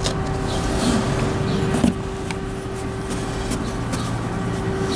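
Handling noise: a cotton t-shirt being shifted and rustled in a cardboard box, with scattered light rubs and taps over a steady hum.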